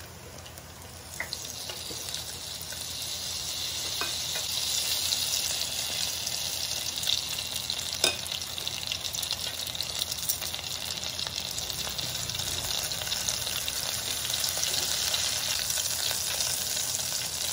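Batter-coated mussels deep-frying in the oil of an electric deep fryer: a steady crackling sizzle that grows louder over the first few seconds as more pieces go in, then holds. A few sharp clicks stand out against it.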